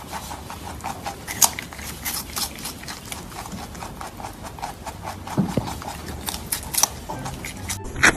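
Lop-eared rabbit crunching crisp cucumber and carrot slices, a quick irregular run of sharp crunches and chewing clicks, several a second.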